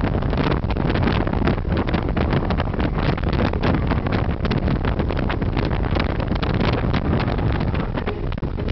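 Wind buffeting the microphone in an open-top car at highway speed, in constant gusts over the rush of the car and road.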